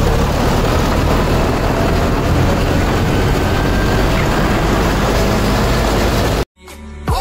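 John Deere tractor's diesel engine running steadily under way, heard from the driver's seat. It cuts off abruptly near the end, and music starts with a falling swoosh.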